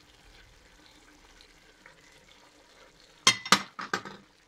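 Faint sizzling of cuttlefish, spinach and tomato in a stainless steel pot. About three seconds in, a quick run of three or four sharp clinks and knocks as the emptied glass bowl is put down.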